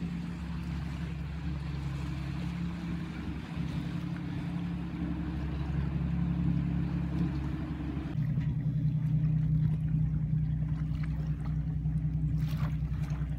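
Motor yacht's engines running as it cruises past, a steady low drone that grows louder about eight seconds in.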